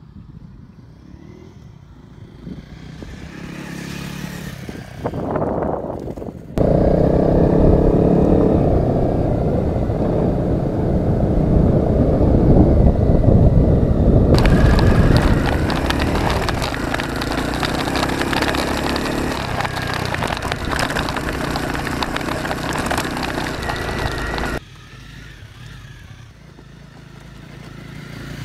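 Honda CRF250 Rally's single-cylinder four-stroke engine riding off-road on dirt. It first grows louder as it approaches, then is heard loud and close from on the bike. It drops back suddenly and swells again as the bike approaches near the end.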